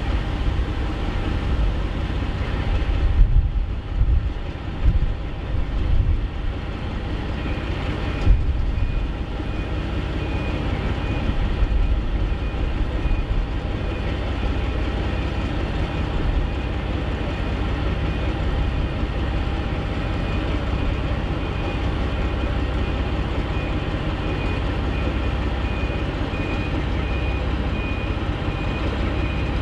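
Twin Maybach MD650 diesel engines of the Class 42 Warship diesel-hydraulic locomotive D821 'Greyhound' running as it moves slowly towards the listener: a steady, many-toned engine drone. A few low thumps come between about three and eight seconds in, and a faint high beeping starts about seven seconds in.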